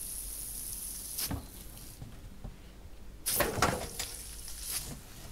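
A quarter-turn valve on the end of a frozen copper pipe is opened and shut twice. Each time a short hiss comes through and is cut off with a click: the ice plug is blocking the water.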